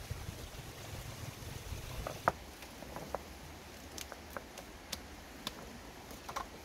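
Rounded river stones knocking and clacking against each other as they are set in place by hand, with one sharp knock about two seconds in and scattered lighter clicks after. A low rumble runs under the first two seconds.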